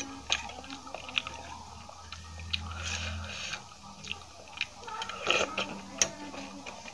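Close-miked chewing and wet mouth sounds of someone eating aloo paratha with potato curry, with scattered sharp clicks from a steel spoon in a steel bowl. A low steady hum runs under the first few seconds.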